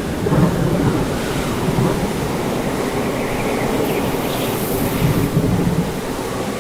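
Violent storm ambience: strong wind blowing with rain, a dense, steady low rush with a brief brighter hiss about four and a half seconds in.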